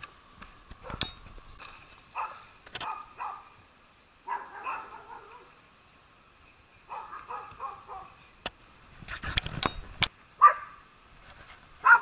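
A dog barking in short, separate barks, the loudest ones near the end, with a few sharp clicks in between.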